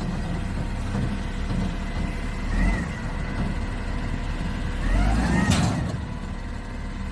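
A heavy vehicle's engine running steadily, with a short high rising-and-falling sound about two and a half seconds in and a louder one with a brief hiss about five and a half seconds in.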